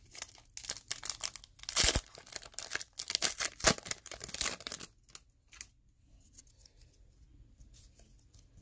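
Foil trading-card pack being torn open and its wrapper crinkled, with the loudest rip about two seconds in. After about five seconds only faint rustles of the cards being handled.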